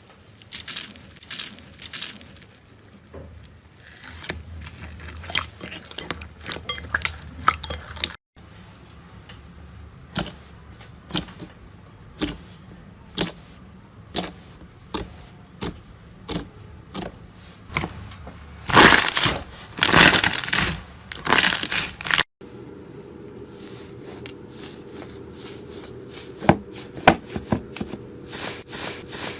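Slime being squeezed and kneaded by hand: many sharp sticky clicks and pops, with a louder crackling stretch after about 18 seconds. The sound cuts off abruptly twice, about 8 and 22 seconds in.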